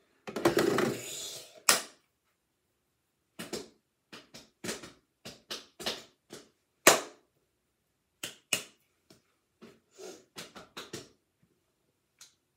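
A short rustle ending in a sharp click, then a string of light, irregular taps and clicks, about twenty of them over some eight seconds.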